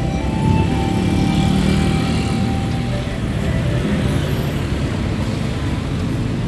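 Heavy city road traffic: a steady rumble of many car engines in congested lanes.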